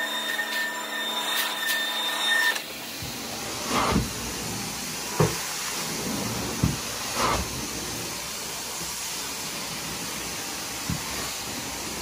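Carpet-cleaning vacuum extraction equipment running. A steady motor whine for the first two and a half seconds breaks off abruptly into a steady rushing suction hiss, with a few short louder swishes and knocks.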